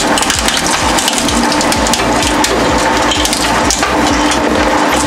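Twin-shaft shredder's steel cutter discs crunching a high-heeled shoe to pieces: a dense crackle of breaking material over the machine's steady hum.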